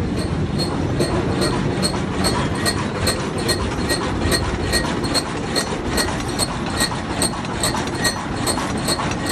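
Tractor-driven straw reaper running: a steady mechanical rumble with a regular light metallic click about two to three times a second.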